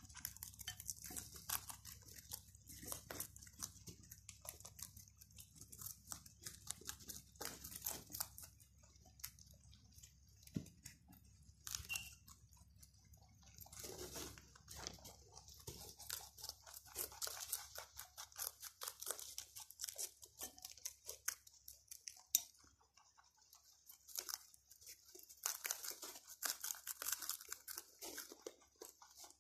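Several young rabbits chewing crisp green vegetables, a dense run of small, fast, crackly crunches. One sharper click stands out about two-thirds of the way through.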